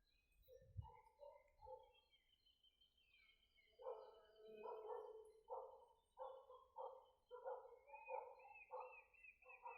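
Faint animal calls: from about four seconds in, a call repeated evenly about twice a second, over small bird chirps, with a fast high trill near the end.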